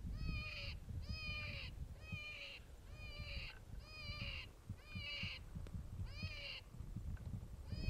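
Predator call playing a prey-animal distress cry for coyotes, repeated about once a second. Each cry is a squeal that rises and falls, with a short raspy tail. Wind rumbles on the microphone underneath.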